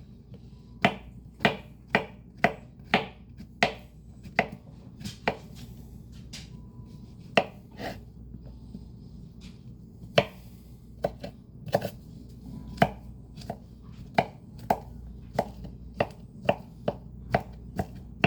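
Greens being chopped: sharp, irregular chopping strikes, about one to two a second with a few short pauses, over the steady low hum of a fan.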